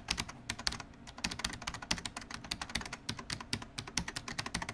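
Rapid typing on a computer keyboard: a dense, irregular run of sharp key clicks, several a second.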